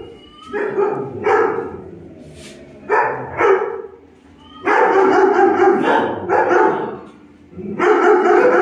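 Dog barking repeatedly in bursts with short pauses, several barks running together in a longer stretch about halfway through.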